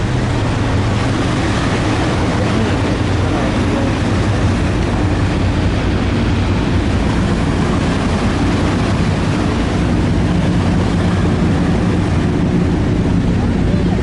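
A steady engine drone with a constant rushing noise over it.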